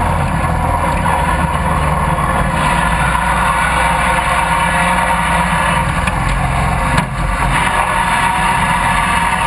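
Riding lawn mower's engine running steadily under load, heard close up, as the mower drives through shallow water and up onto grass.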